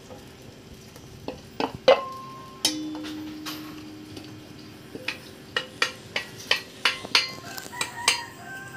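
Wooden spoon scraping and knocking diced potatoes out of a metal bowl into a stainless steel cooking pot. A loud knock comes about two seconds in, followed by the bowl ringing briefly. From about five seconds on there is a string of sharp taps against the metal.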